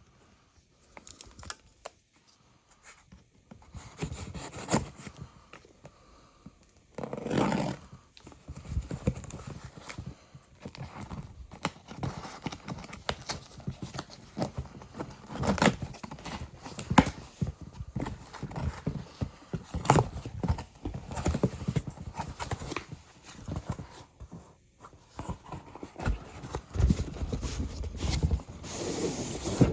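Handling noise from unboxing a pair of basketball shoes: irregular knocks and taps of the cardboard shoebox and its contents, with stretches of paper rustling.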